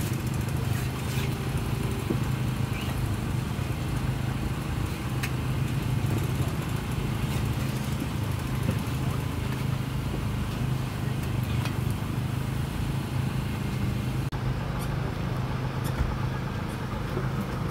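A small engine running steadily with a constant low hum, over general outdoor background noise; the background changes abruptly about fourteen seconds in.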